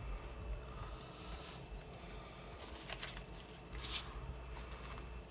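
Faint rustling as paper cards and a roll of washi tape are handled, with a couple of brief, louder rustles about three and four seconds in.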